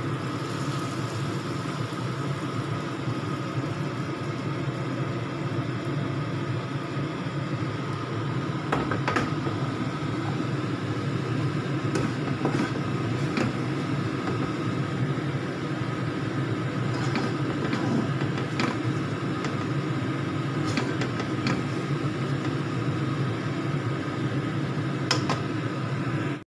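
Steady mechanical hum, with scattered light clicks and knocks of a utensil against the wok and ceramic bowl as tomato sambal is scraped out.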